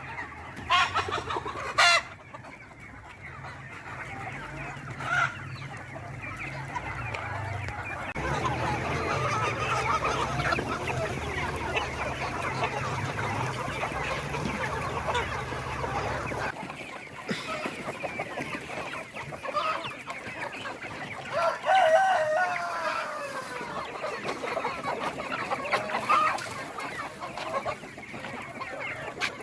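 A flock of chickens clucking and calling over one another, with a louder drawn-out call about three-quarters of the way through that may be a rooster crowing. A steady low hum runs underneath and cuts off a little past halfway, and two sharp knocks sound near the start.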